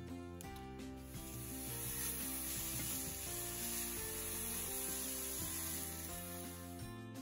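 Julienned beets sizzling in hot oil in a stainless steel skillet as they are stirred with a wooden spatula. The sizzle starts about a second in and stops shortly before the end, with background music underneath.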